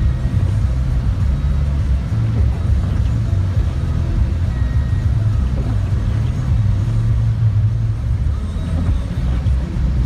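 Steady low rumble inside a moving car's cabin: engine and tyre noise while driving on a snow-covered road.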